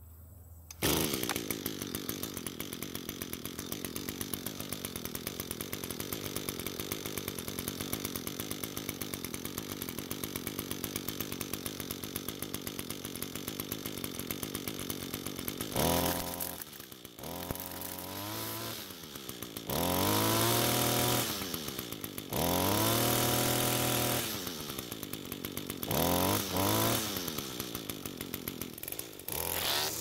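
Echo string trimmer's two-stroke engine catching and starting about a second in, then idling steadily. From about halfway it is revved up and let back down several times before returning to idle. It starts and runs fine after the fuel line and choke repair.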